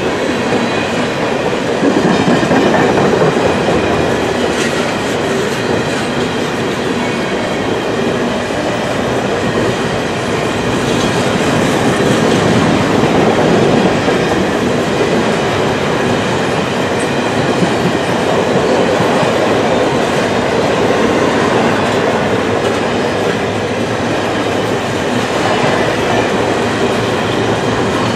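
Steel-wheeled coal hopper cars of a long freight train rolling past close by: a steady, loud rumble with wheel clatter over the rails.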